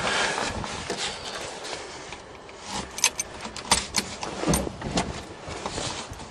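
Keys jangling and clicking at a truck's steering-column ignition lock as the key is handled and turned, with scattered sharp clicks and knocks, the sharpest between about three and five seconds in. The engine is not cranking.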